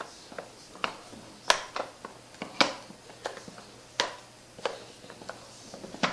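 Sliding pieces of a handmade puzzle box clicking and knocking as the end pieces and sliders are pushed step by step. The clicks come irregularly, about a dozen, the loudest about one and a half, two and a half and four seconds in.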